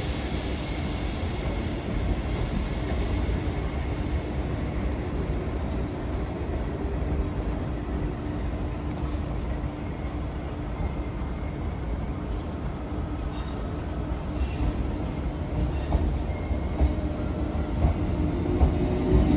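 Two coupled Class 456 electric multiple units pulling away from a platform. A steady electrical hum gives way, late on, to a whine that rises in pitch as the train gathers speed, with wheels clicking over the track.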